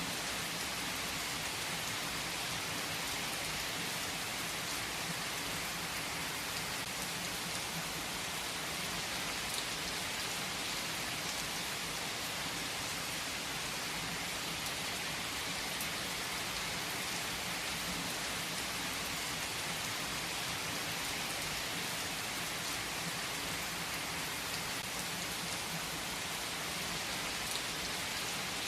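Steady rain falling: an even, unchanging hiss with faint scattered drop ticks.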